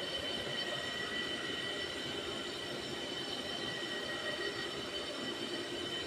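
Milling machine running with a grinding wheel sharpening a blade's edge: a steady high metallic whine over a grinding hiss.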